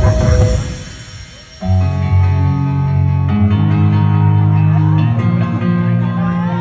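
Music with a heavy bass. A loud low hit at the start dies away, and from about a second and a half in, held bass notes and chords come in with a melody above.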